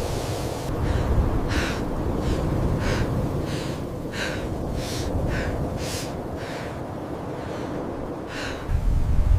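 Low wind rumble with a run of short, hissy, breath-like strokes, roughly one every half second to second, and a louder gust of rumble near the end.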